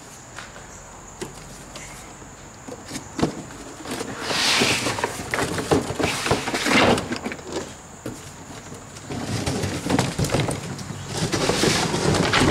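Cardboard box scraping and rustling as a boxed lawnmower is hauled out of it, with knocks from the mower's plastic body. The noise comes in two spells, about four to seven seconds in and again from about nine seconds.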